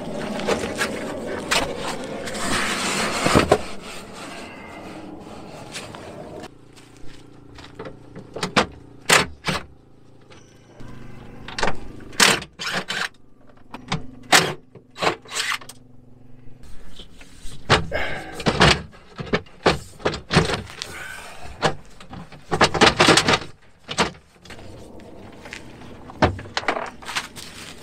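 Scattered clicks, knocks and clanks of hand tools, cables and parts being handled in a metal battery compartment as wiring is disconnected and a shelf is worked loose, with a faint low steady hum through the middle.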